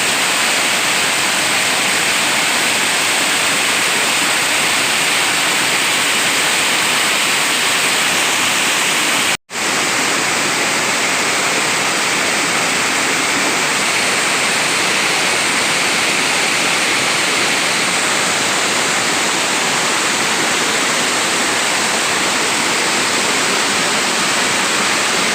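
Waterfall rushing with a steady, dense roar of falling water, broken by a sudden brief dropout to silence about nine and a half seconds in.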